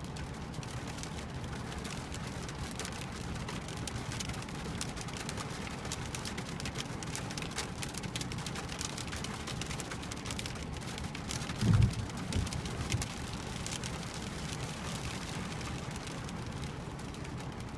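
Small hail mixed with rain striking a car's windshield and roof, heard from inside the cabin: a dense, steady patter of fine ticks. About twelve seconds in there is a brief low thump, followed by two smaller ones.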